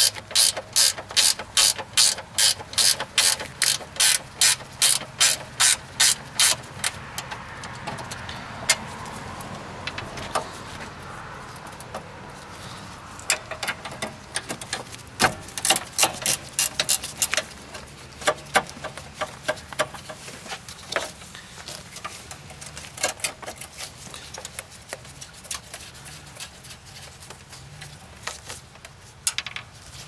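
10 mm ratcheting wrench clicking as a bolt is turned out, at about three clicks a second for the first six or seven seconds. After that the clicking comes in softer, irregular short runs.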